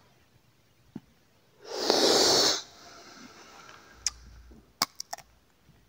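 A smoker's forceful breath out, about a second long, blowing out cigarette smoke, followed by a few small clicks.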